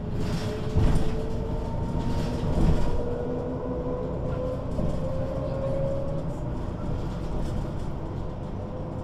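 MAN NG 313 articulated city bus under way: diesel running with a rumble and body rattles, and a ZF automatic gearbox whine rising in pitch as the bus gathers speed, broken once about two seconds in. Two louder knocks come about one second and two and a half seconds in.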